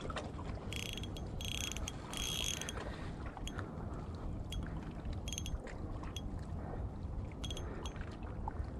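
Shimano Stradic CI4+ 1000 spinning reel's drag giving line in several short buzzing bursts as a hooked golden trevally pulls against the light rod, three close together in the first few seconds and a few more later. Low wind rumble on the microphone runs underneath.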